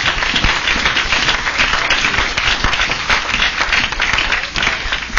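A congregation applauding: many hands clapping together without a break.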